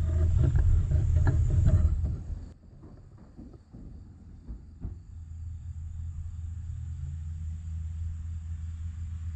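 Wind rumbling on a handheld microphone, with rustling and knocks from walking through creek-bank grass, that stops abruptly about two and a half seconds in. After that come a faint steady low hum and a thin, steady, high trill of insects such as crickets.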